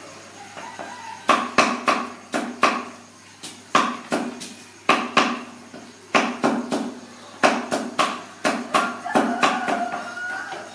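A run of sharp knocks and clacks in an irregular beat, about two a second, each with a short ringing tail.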